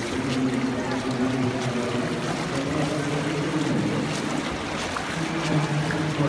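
Indoor swimming-pool hall ambience: a steady, echoing wash of water and hall noise with indistinct voices murmuring in the background.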